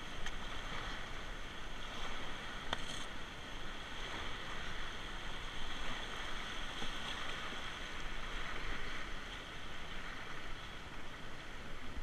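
River whitewater rushing steadily around a kayak running a rapid, with one sharp knock nearly three seconds in.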